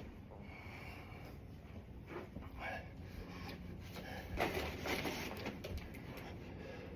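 A person breathing hard during bodyweight exercise, with several sharp exhales, the strongest a little past the middle.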